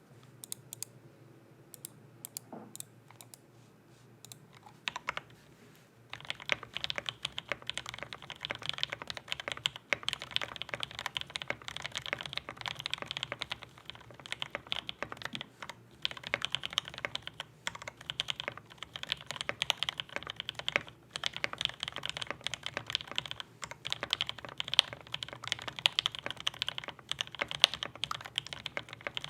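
Gasket-mounted polycarbonate KBD67mkii mechanical keyboard with lubed JWK Giant V3 linear switches, FR4 plate and foam, being typed on. A few scattered keystrokes for the first several seconds, then steady fast typing from about six seconds in.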